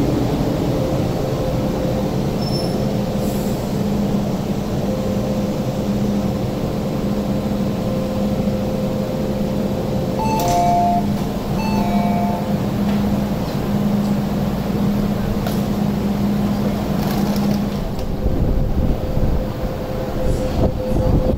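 MTR Disneyland Resort Line M-Train at the platform: a steady electric hum from the train. A short two-note chime sounds twice about ten seconds in, and a deeper rumble rises in the last few seconds.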